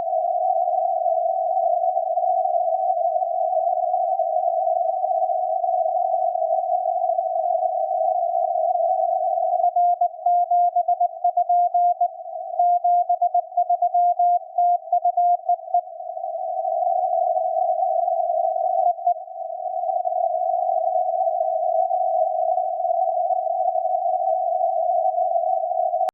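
Morse code (CW) on the 40-metre amateur band at 7030 kHz, heard through a receiver's narrow CW filter as a mid-pitched beep. For most of the time the filtered band noise hisses, with faint signals under it. From about ten to sixteen seconds in, a clear run of keyed dots and dashes comes through.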